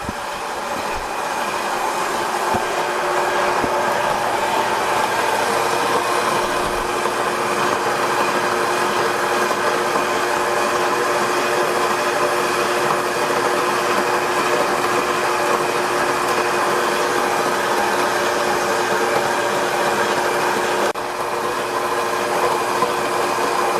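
Mockmill electric stone grain mill running steadily, grinding whole wheat into fine flour on a fine setting: a continuous motor whine with a grinding rush. It swells over the first few seconds and then holds even.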